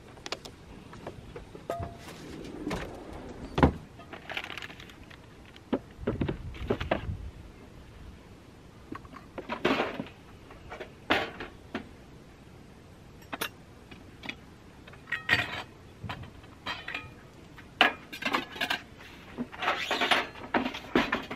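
Irregular knocks, clicks and rustles of camping gear being handled and packed into a wooden storage drawer pulled out from a pickup truck's bed, busiest near the end.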